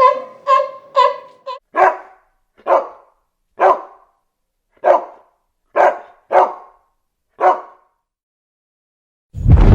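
A canine yipping rapidly, about two short high calls a second, then barking eight separate times with pauses between. A loud low rumble begins just before the end.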